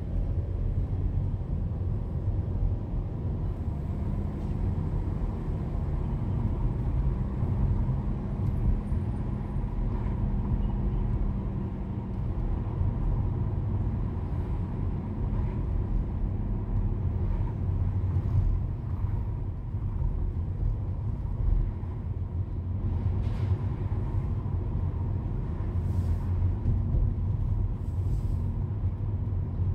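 Steady low rumble of a car driving through city traffic, heard from inside the cabin: road and engine noise.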